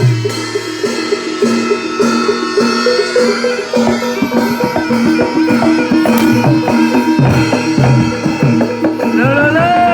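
Javanese traditional barongan accompaniment: hand drums and ringing tuned metal percussion playing a steady rhythm. A wavering melody line comes in near the end.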